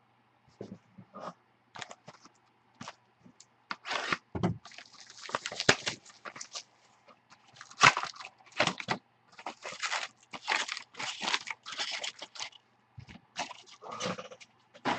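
Topps Prime football card packs being torn open, their wrappers crinkling and rustling in irregular bursts.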